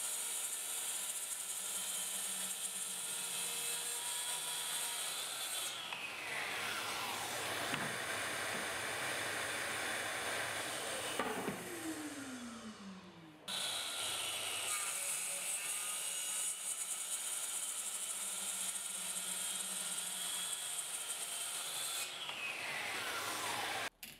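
Bosch plunge-cut circular saw running at reduced speed as it cuts an HPL laminate sheet along a guide rail. About six seconds in the motor is switched off and winds down with falling pitch. It is heard running again, and winds down once more near the end.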